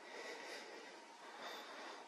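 Faint breathing close to the microphone: two soft noisy breaths over a low hiss.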